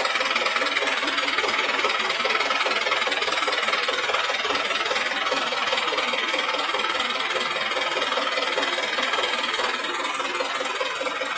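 Engine of a DFQ-200W pneumatic water-well drilling rig running steadily, a dense mechanical clatter that eases slightly near the end.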